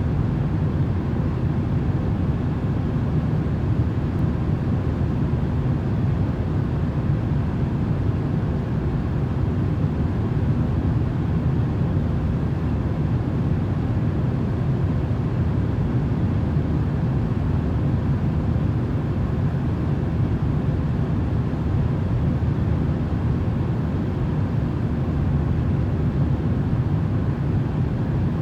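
Steady, low-pitched rumbling noise with a faint hum over it, unchanging throughout: a continuous 'white noise' sleep track.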